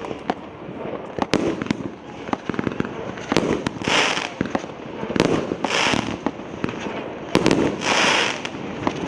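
'Golden Fleece' fireworks battery (cake) firing: sharp bangs of shells bursting, with many small cracks throughout. Three long hissing crackles come about four, six and eight seconds in.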